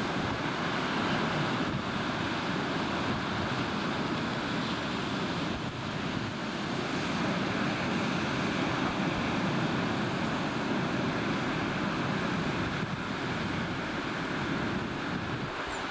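Rough sea washing and waves breaking, with strong wind buffeting the microphone; a steady rushing noise with no distinct engine tone.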